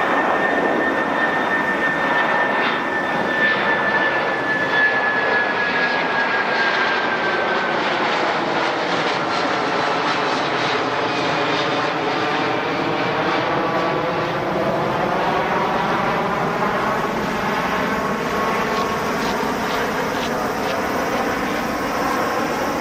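Airbus A330-300's twin jet engines at takeoff climb power as the airliner passes overhead and climbs away. A high fan whine slowly falls in pitch over the first several seconds, and the steady rushing jet noise carries on throughout.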